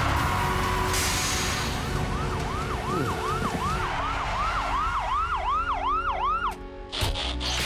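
A police car siren in fast yelp mode, its pitch swooping up and down about three times a second, over a steady low rumble. It stops about six and a half seconds in, followed by a couple of sharp hits.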